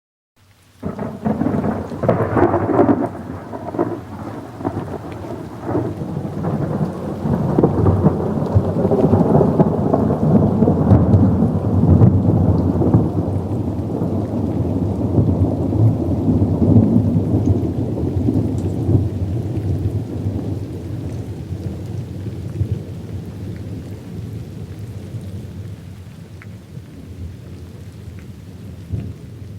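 A long roll of thunder with steady rain. It breaks sharply about a second in, crackles for the first few seconds, then rumbles at length and slowly dies away near the end.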